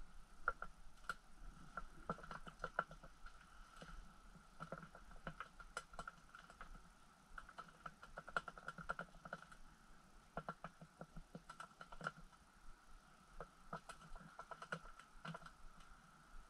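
Faint, irregular small clicks and ticks, some in quick clusters, from a short ice-fishing rod being jigged in gloved hands.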